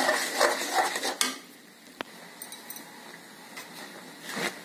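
Metal spoon scraping and clinking against a metal pan while stirring puffed paddy rice into hot syrup. The clatter is busiest in the first second or so, with one sharp click about two seconds in and another burst of stirring near the end.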